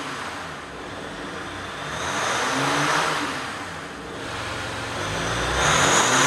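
Jeep Gladiator's 3.0L EcoDiesel V6 turbodiesel idling and revved twice. The first rev, about three seconds in, goes through the stock exhaust; the second, near the end, goes through an MBRP 3-inch XP Series stainless filter-back turn-down exhaust.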